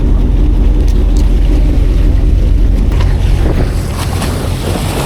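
Loud, steady low rumble of wind buffeting the microphone on an open boat, easing a little near the end, with a few light clicks and knocks in the last second or two.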